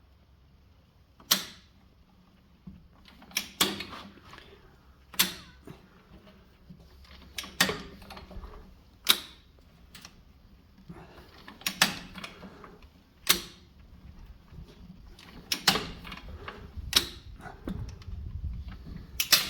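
A jack being let down step by step under a tractor, giving a sharp mechanical click every second or two, about a dozen in all.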